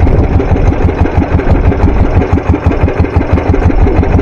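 A small fishing boat's engine running steadily at low speed, with a fast, even chugging pulse.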